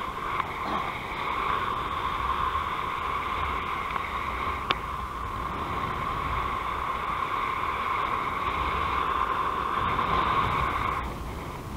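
Steady rush of airflow over the camera during paraglider flight, with a single brief click about four and a half seconds in.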